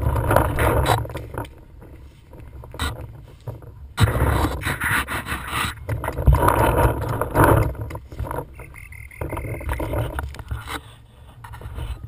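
Wind buffeting and handling noise on a body-worn camera as a paintball player moves over wood-chip ground between inflatable bunkers, coming in surges with a constant low rumble. A few sharp knocks break through, the clearest about three and four seconds in.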